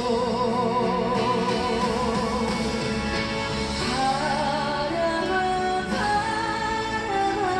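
Background music: a sung melody with vibrato over steady instrumental accompaniment.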